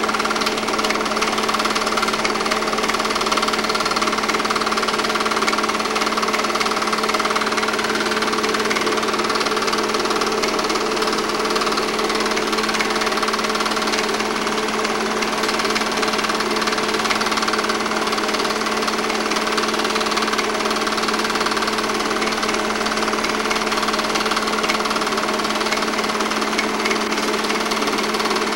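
8mm film projector running: a steady, rapid mechanical clatter from the film advance over a constant motor hum.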